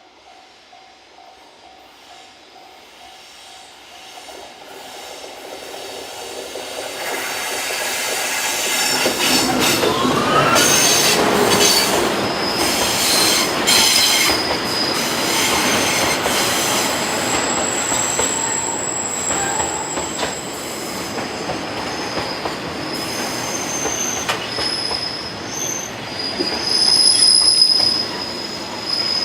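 A freight train on a single track grows louder over about ten seconds as it approaches, then passes close by. Its wheels clatter over the rail joints, and the wheel flanges squeal in high, steady tones as the wagons roll past.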